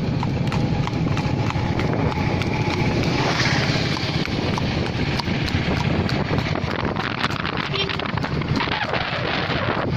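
Horse's hooves clip-clopping at a steady trot on an asphalt road, over a steady low motorbike engine hum and wind on the microphone.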